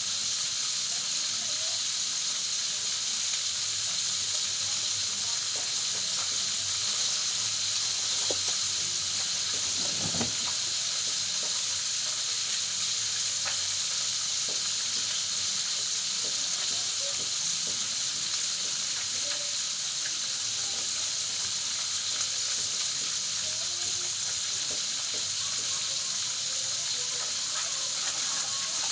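Food frying in hot oil, a steady sizzle, with a couple of short knocks about eight and ten seconds in.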